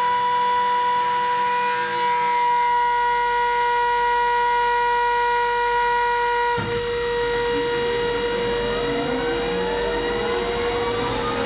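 Kongsberg KG2 turbine starting: a steady, siren-like whine of fixed tones. About six and a half seconds in, the sound shifts and several tones begin rising steadily in pitch as the turbine spools up.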